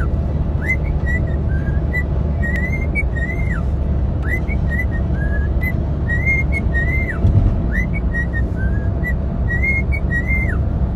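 A whistled tune of short rising and falling notes, repeated in phrases every second or two, over a steady low hum.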